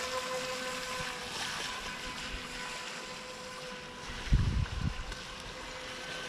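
Brushed electric motor and jet drive of a small RC jet boat running, a steady whine at constant pitch, heard from the shore over wind on the microphone. Low wind buffets on the microphone come about four seconds in.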